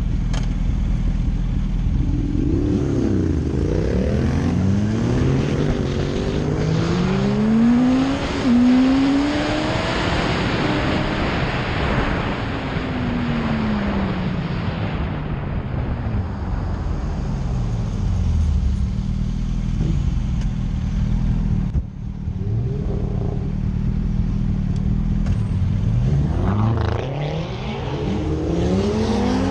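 Sport motorcycle engine accelerating hard through the gears, its pitch climbing and then dropping at each shift several times, then falling away in long glides as it slows. Wind rushes past the rider's microphone as it speeds up.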